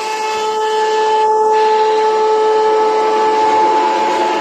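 Roll forming machine for pallet-rack beams running: a steady whine over a constant hiss.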